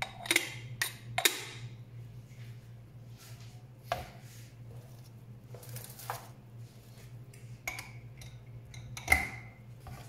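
Metal parts of a 1Zpresso K-Plus aluminium hand coffee grinder being handled: a handful of separate clicks and knocks as the catch cup goes onto its magnetic mount and the grinder is set on and lifted from a plastic tray. The loudest knock comes near the end.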